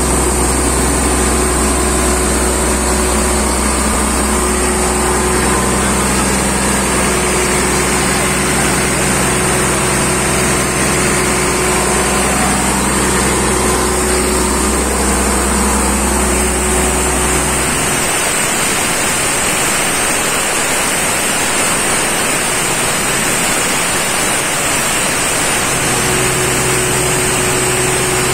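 Caterpillar 3306 inline-six diesel engine of an Ingersoll Rand 750 CFM portable air compressor running steadily. About two-thirds of the way through, the deep low hum drops away, leaving a steadier, more hissing machine noise.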